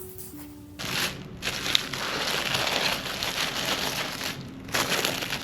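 Plastic cling wrap being pulled and wrapped around a pastry-covered Beef Wellington, crinkling and crackling steadily, with a short lull about four and a half seconds in.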